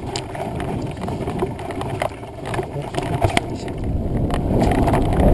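Mountain bike riding a woodland dirt trail: the tyres rumble over the ground, with short knocks and rattles from the bike over bumps. The noise grows louder toward the end.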